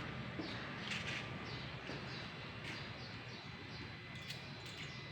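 Bird chirping: a run of short, high, falling chirps about two a second, over faint background noise.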